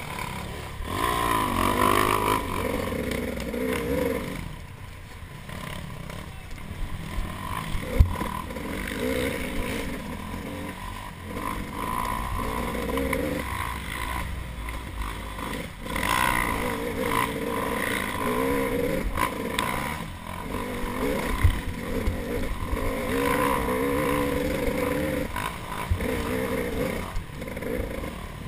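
Off-road dirt bike engine revving up and down over and over as the bike is ridden hard over rough singletrack, with knocks and rattles from the bike over bumps and one sharp knock about eight seconds in.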